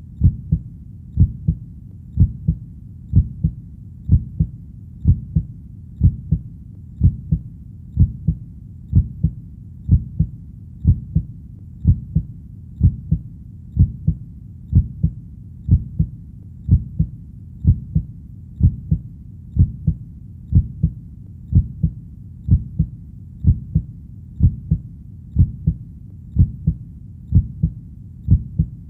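A steady heartbeat, a low lub-dub double thump repeating about once a second, over a faint even hiss.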